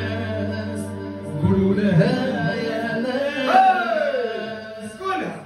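A man singing a bending, ornamented Arabic-style melody through a microphone, accompanied on an electronic arranger keyboard. A long falling glide comes near the end.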